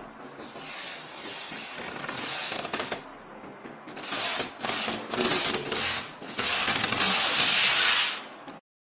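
Protective plastic film being peeled off a tempered-glass PC case side panel: a crinkling, crackling rustle in several pulls, loudest over the last two seconds and stopping suddenly near the end.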